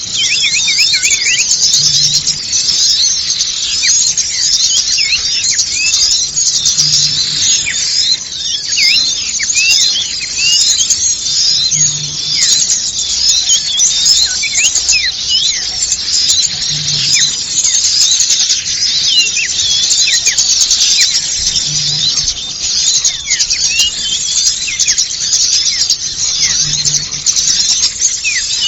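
Dense chorus of many small songbirds twittering and chirping at once, a busy overlapping mass of short high chirps with no pauses, as in a bird-lure recording for trapping small birds.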